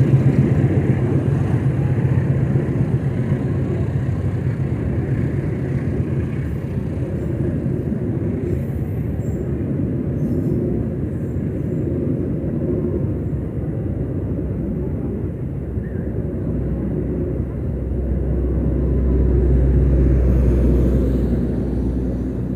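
Cirebon Ekspres passenger train rolling past a station platform: a steady rumble of the carriages going by, with a deeper rumble swelling near the end as the last car passes.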